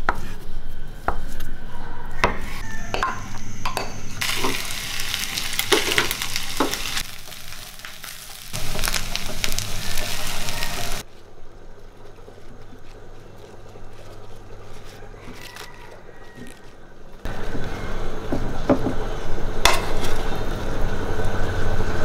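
Home kitchen cooking sounds: a knife tapping through sausages on a wooden chopping board at the start, then stretches of food sizzling and being stirred in a frying pan with a wooden spatula, with a quieter stretch in the middle.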